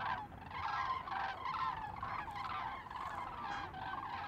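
Poultry calling, many short overlapping calls coming about three a second.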